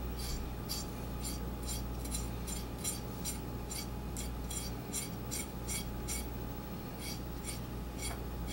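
Kitchen knife blade scraping the roots of young radishes (yeolmu) clean in short, regular strokes, about three a second, over a steady low hum.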